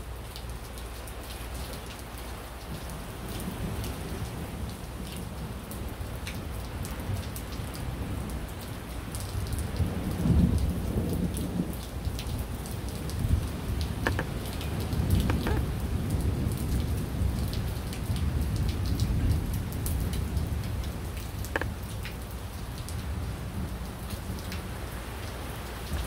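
Steady rain with many fine drop ticks, and thunder rumbling low. The rumble swells about ten seconds in and again for several seconds a little later.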